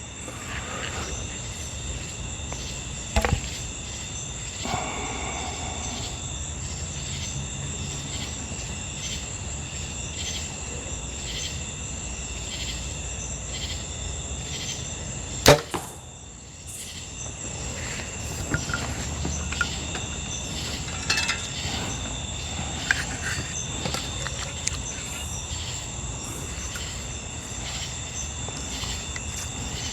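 A bow shot: one sharp, loud snap of the string and arrow about halfway through, with a lighter click a few seconds in. Steady chirring of crickets or other insects runs underneath.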